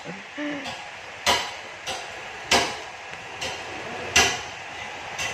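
Metal striking metal: a series of sharp knocks with a short ring, about one a second, like a hammer tapping.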